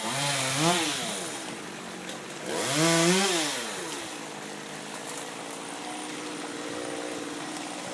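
Chainsaw engine revved twice, the pitch rising and falling each time, then settling back to a steady idle.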